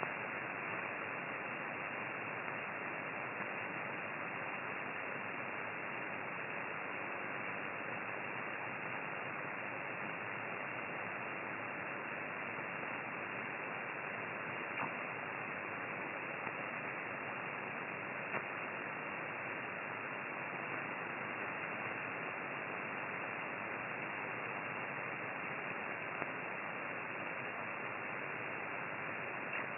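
Amateur radio receiver on the 6-metre (50 MHz) band putting out a steady, even hiss of noise with a few faint clicks. This is the unwanted noise interference that is the problem being shown.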